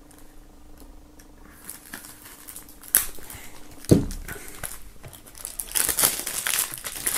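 Plastic shrink-wrap being slit and peeled off a CD jewel case: faint scratches and clicks at first, a sharp click about three seconds in and a thump a second later, then loud crinkling of the film from about six seconds on.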